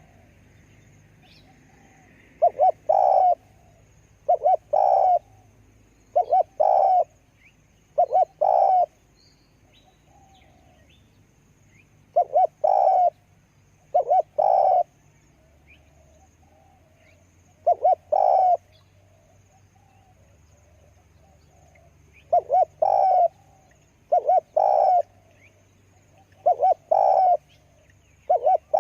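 Spotted dove cooing: short phrases of a few notes, repeated about every two seconds, with a couple of longer pauses partway through.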